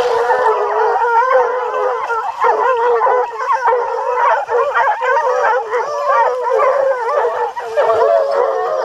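A pack of hunting hounds baying together on a wild boar, many overlapping howls and yelps in an unbroken chorus.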